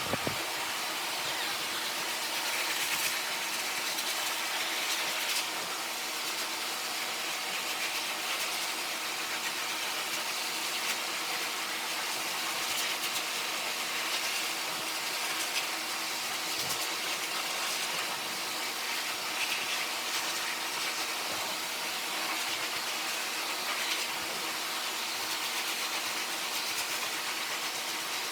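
Dog grooming blow dryer running steadily: a constant airy hiss over a low hum, blowing the water out of a freshly bathed poodle puppy's coat.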